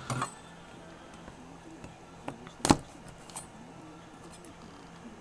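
Quiet handling noise of a trading card box being opened, with a few light clicks and taps and one sharp click a little past halfway.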